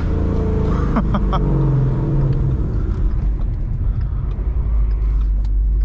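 Ford Mustang GT's 5.0 Coyote V8 running under way through Kooks headers and a Corsa Extreme catback exhaust, a steady low exhaust note that wavers in pitch after about two and a half seconds.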